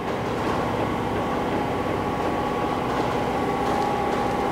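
Steady mechanical rumble and drone with a faint whine, holding at a constant level.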